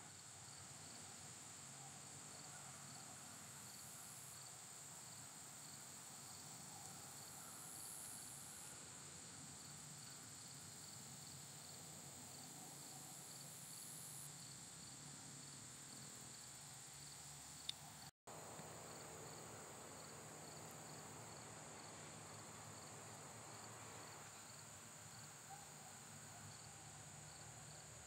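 Faint outdoor ambience of insects, likely crickets, chirping: a constant high drone with a regular pulsing chirp repeating evenly throughout. A single sharp click comes a little past halfway, followed by a momentary break in the sound.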